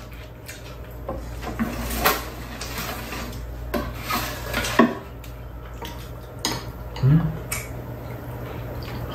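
Chopsticks and spoons clicking and scraping against stainless-steel bowls and a metal tray while eating, in scattered irregular clinks over a steady low hum.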